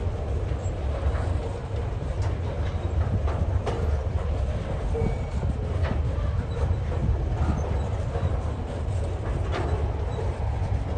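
Freight train rolling past: a steady low rumble with irregular sharp clicks and clanks of steel wheels over the rail joints.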